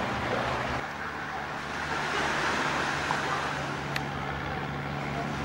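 A steady low engine hum sits under an even wash of noise, with one faint tick about four seconds in.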